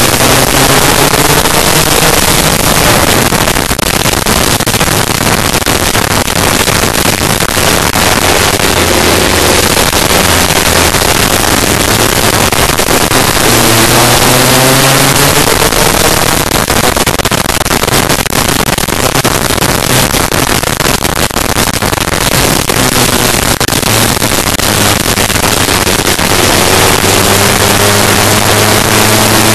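Onboard sound of a Lambretta racing scooter's two-stroke engine at racing speed. Its pitch climbs through each gear and drops back at the shifts, half buried under loud wind rush on the camera microphone.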